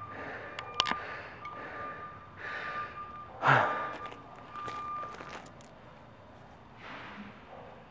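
A man breathing hard after a workout, in breathy gusts about a second apart, with one loud exhale about three and a half seconds in. Behind it, a high, even beep tone cuts in and out during the first five seconds.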